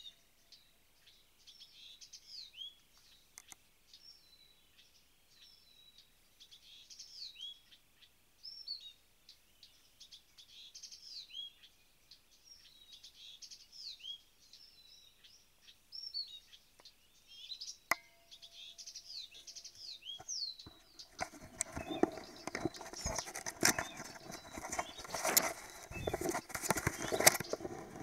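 A small songbird singing in short, high, falling whistled notes, phrase after phrase. From about 21 seconds in, loud splashing and rustling of an animal moving in the water close to the microphone takes over.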